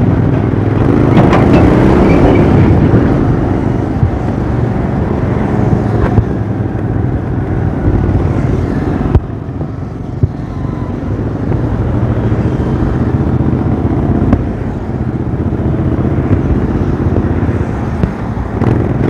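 Royal Enfield Interceptor 650's parallel-twin engine running with a steady, low exhaust note, heard from the rider's seat while riding slowly through traffic. The sound changes abruptly about nine seconds in.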